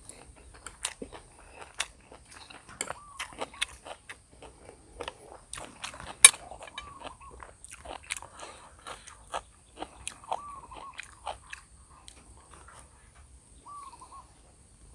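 Close-miked eating of instant noodles and sausage: irregular chewing, biting and wet mouth clicks. A short squeaky note recurs about five times.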